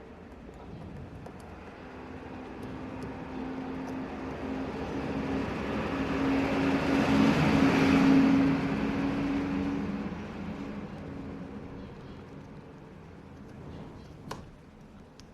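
A motor vehicle passing: a steady engine hum and road noise that swell to a peak about eight seconds in, then fade away. A single sharp click near the end.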